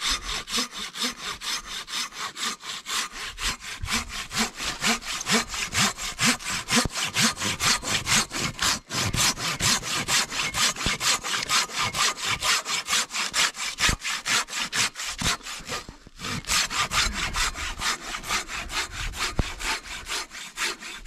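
A Silky BigBoy folding saw cutting through a dead log, in quick, even back-and-forth rasping strokes, about three to four a second. The sawing breaks off briefly twice.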